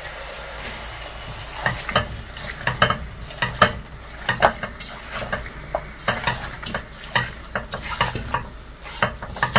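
Silicone spatula stirring raw masala-coated chicken pieces in a nonstick pot, a run of irregular scrapes and knocks against the pot that starts about a second and a half in, over a light sizzle of oil.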